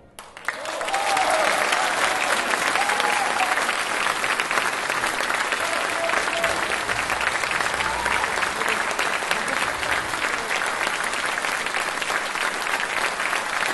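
Audience applause breaking out about half a second in and staying steady, with a few voices calling out over it.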